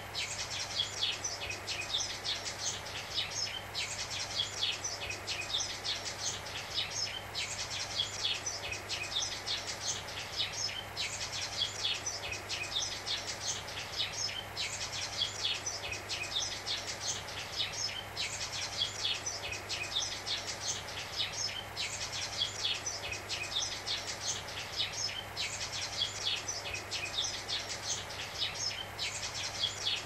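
Sparrows chirping busily, laid over a steady hiss of analog-TV static white noise. The chirping breaks briefly about every three and a half seconds.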